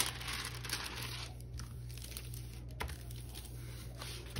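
Clear plastic cover film on a diamond-painting canvas crinkling as hands handle and smooth it flat. The crinkling is loudest in the first second, then gives way to fainter rustling with a small click about three seconds in.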